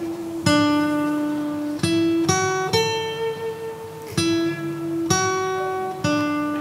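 Music: a slow melody of single plucked notes on a guitar-like string instrument, each note struck sharply and left to ring out, about seven notes.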